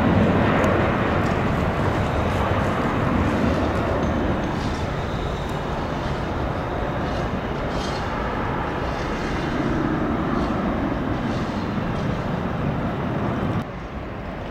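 Embraer E-Jet's twin turbofan engines at takeoff thrust as the jet lifts off and climbs away: a loud, steady jet noise that slowly fades. About a second before the end it drops abruptly to a quieter steady engine noise.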